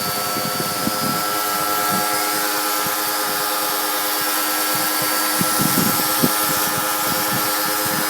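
Small Black & Decker electric pressure washer running steadily, its motor holding an even whine over the hiss of the high-pressure water jet from the lance, with a few small knocks.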